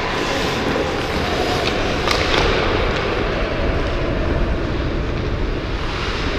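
Wind rushing and rumbling over a GoPro's microphone as its wearer skates, with the hiss of skate blades on the ice. Two sharp knocks come about two seconds in.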